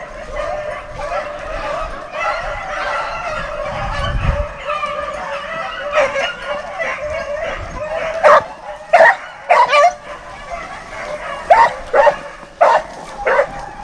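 A pack of rabbit hounds baying on a rabbit's track: many dogs giving tongue together, overlapping, with several loud bawls from nearer dogs in the second half. This is the pack running the rabbit by scent.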